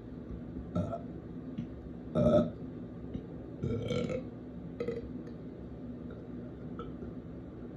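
A person burping repeatedly, about four burps in the first five seconds. The loudest comes about two seconds in, and a longer one follows about four seconds in.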